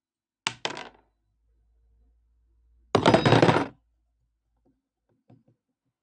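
Small metal parts from a vintage PFAFF sewing machine clinking on a hard surface. There are two quick clinks, then a rattling clatter lasting under a second, and a couple of faint taps near the end.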